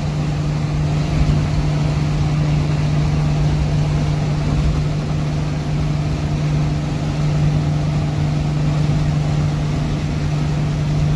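Straight-piped Isuzu 6BD1-T turbo-diesel straight-six of a 1991 Isuzu FTR dump truck, its muffler cut off, running steadily at highway speed, heard from inside the cab as an even drone over road rumble.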